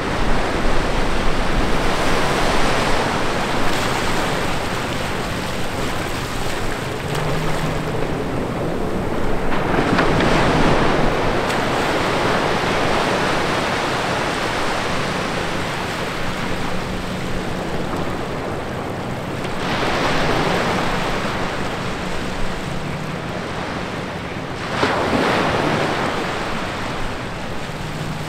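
Small ocean waves breaking and washing up over wet sand between rocks, the surf swelling louder several times as each wave comes in and then easing back.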